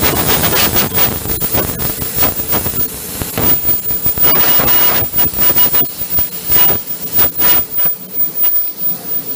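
Laser cutter cutting black ABS sheet, its air assist hissing steadily while the noise pulses unevenly several times a second.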